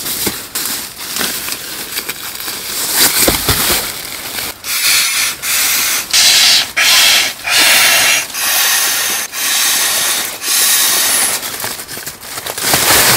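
An inflatable sleeping pad is being blown up by mouth through a pump sack: about eight rushing breaths of air, each under a second with short pauses between. Before them, fabric rustles as the pad is unpacked.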